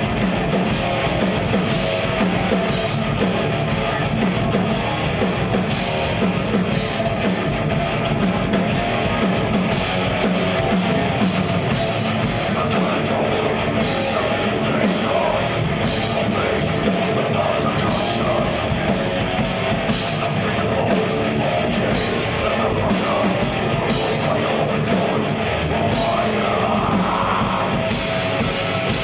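Death metal band playing live: heavily distorted guitars and bass over a drum kit with fast, dense drum and cymbal hits, continuous and loud.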